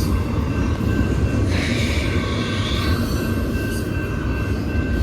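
Freight train cars rolling past, a steady rumble of steel wheels on rail with a thin, steady high wheel squeal over it and a short hiss about a second and a half in.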